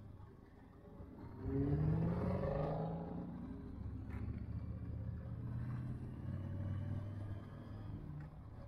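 Motorcycle engine pulling away, its pitch rising as it speeds up about a second and a half in, then running steadily at road speed.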